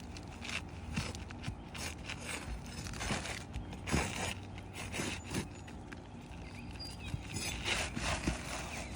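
Asphalt roof shingles being unsealed and pried loose: irregular scraping with scattered short knocks and clicks.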